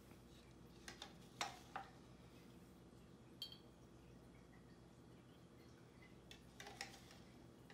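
Faint light clinks of a metal spoon against a glass jar and cup while colored sugar water is spooned in: a few taps about a second in, one near the middle and a short cluster near the end, over a low steady hum.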